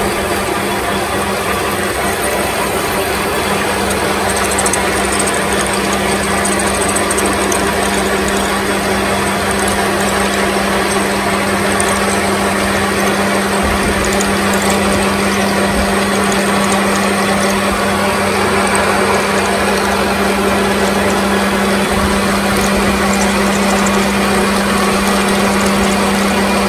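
Metal lathe running steadily, its gears and drive giving a mechanical rattle, while a long gun drill bores into a spinning UHMW plastic bar and throws off stringy chips. A steady low hum joins about four seconds in.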